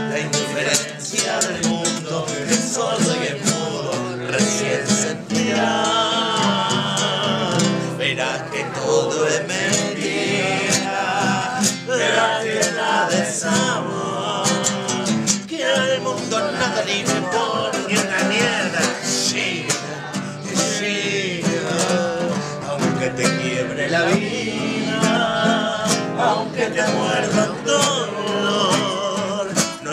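Two men singing a tango in Spanish to a strummed nylon-string classical guitar.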